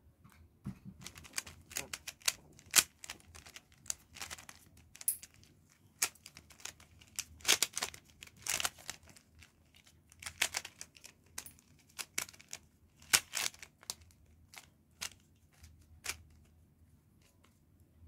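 Plastic puzzle cube being twisted by hand: its layers turning with quick, rattling clicks that come in irregular flurries, dying away about two seconds before the end.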